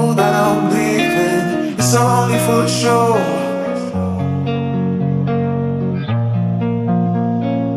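Background music: a song led by guitar, with steady held bass notes.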